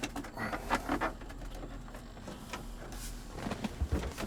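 Plastic car interior trim being handled and pushed into place: scattered clicks and knocks with short rustling scrapes.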